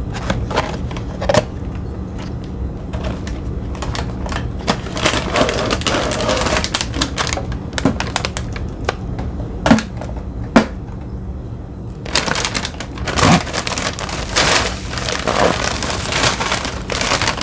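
Cookies being handled and poured into a container: rapid taps and clicks, thickening into rattling clatter from about five to eight seconds in and again from about twelve seconds on. A faint steady hum runs underneath.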